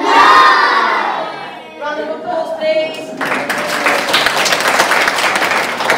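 High-pitched children's voices calling out, then a hall full of young children clapping from about three seconds in.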